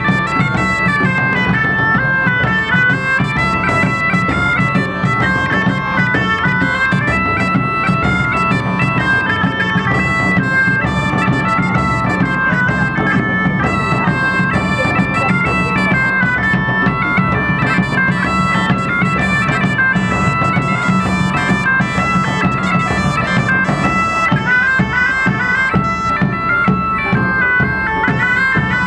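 Several bagpipes playing a tune over their steady drones, with a large drum beating along.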